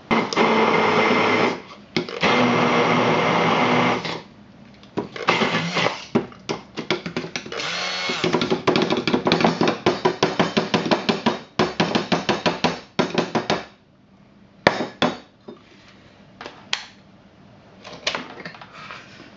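Hand-held stick blender blending Thai green curry paste in a glass measuring jug. It runs steadily twice in the first four seconds, then is pulsed on and off rapidly for several seconds. Only a few short, quieter pulses and a click follow near the end.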